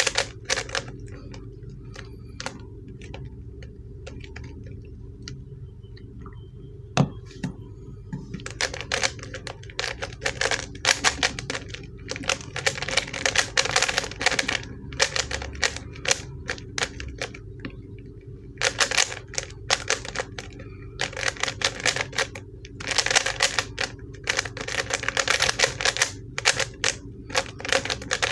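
A ShengShou 3x3 speedcube turned fast by hand: dense runs of plastic clicking and clacking as the layers snap round, on a cube the owner finds stiff to turn. A sparser stretch of a few seconds near the start, then near-continuous rapid turning from about eight seconds in, with two brief pauses, over a steady low hum.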